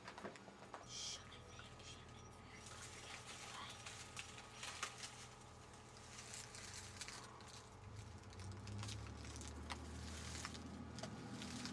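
Faint rustling and crackling of palmetto fronds and dry leaves as people push through brush, scattered small crackles throughout, with a low rumble underneath that grows a little louder in the second half.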